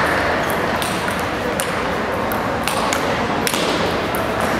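Table tennis ball clicking sharply off paddles and the table in a rally, about one hit a second, over a steady murmur from the hall. Applause dies away at the start.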